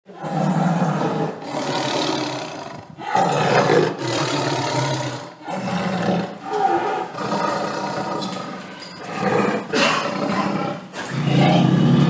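Angry tiger roaring over and over, one rough roar after another, each a second or two long with short breaks between.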